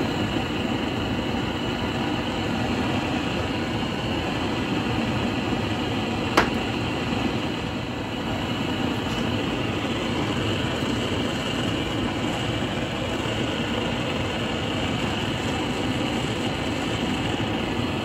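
Propane blowtorch flame burning with a steady rushing hiss while heating a steel joint for silver soldering. A single sharp click comes about six seconds in.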